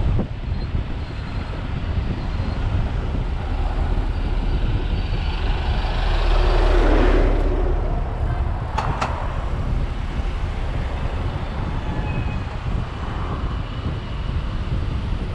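Wind rumble on the microphone and road traffic noise while cycling past queued cars. A city bus alongside swells loud about halfway through, followed by two sharp clicks.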